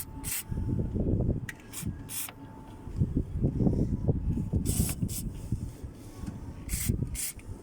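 An aerosol can of penetrating lubricant ('liquid wrench') hissing in several short bursts as it is sprayed onto a car door's hinges and fittings, to stop the squeak and loosen rust, with low rustling handling noise between the bursts.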